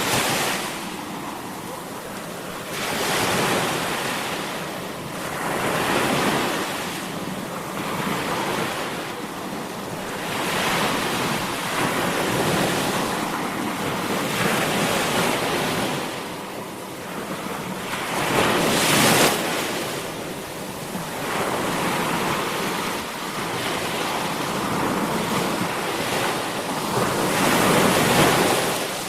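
Sea waves breaking and washing up the shore: a hiss that rises and falls every two to four seconds, one wave about two-thirds of the way through louder than the rest.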